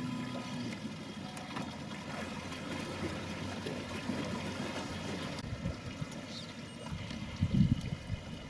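Steady river water lapping and trickling around a small boat, with a few brief low thumps about seven and a half seconds in.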